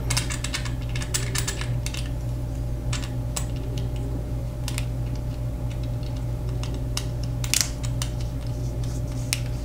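Scattered light metallic clicks and ticks as a Seiko 5's threaded caseback is turned down by hand onto the watch case, over a steady low hum.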